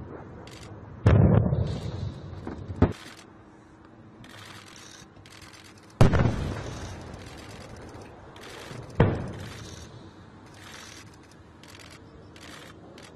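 Distant explosions from bombardment: four sudden booms about a second, three, six and nine seconds in. The ones at one and six seconds are the loudest and trail off in a long rumble.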